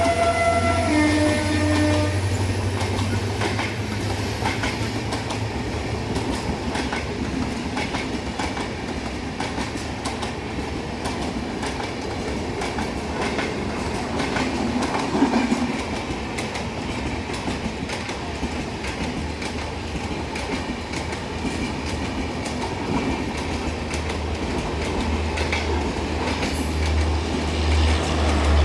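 A multi-tone diesel locomotive horn cuts off about two seconds in. Then the coaches of a passenger express roll past with a steady rumble and quick, repeated clicks of wheels over rail joints.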